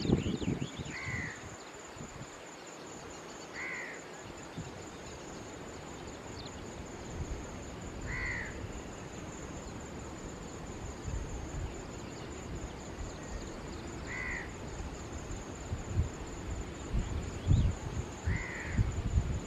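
A crow cawing five times, single calls a few seconds apart, over a steady high-pitched hum. There is low rumbling at the start and again near the end.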